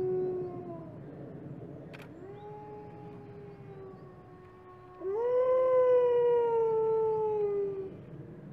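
White wolf howling: a long, steady howl ends just after the start and a quieter howl follows about two seconds in. About five seconds in comes the loudest howl, which swoops up and then slowly falls over nearly three seconds, with a fainter, higher howl alongside it.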